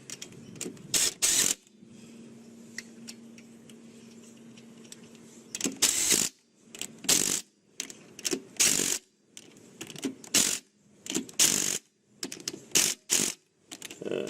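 A series of short mechanical clicks and clatters, two about a second in and then a quick run of them every second or so through the second half.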